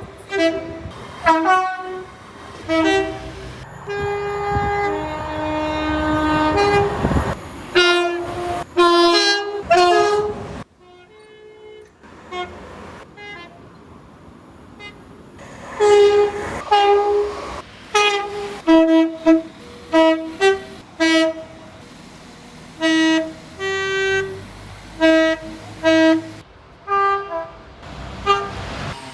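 British train horns sounding two-note tones: a run of short toots, then a longer high-low blast about four seconds in over the rumble of a passing train. After a quieter spell, many more short two-note toots follow one after another.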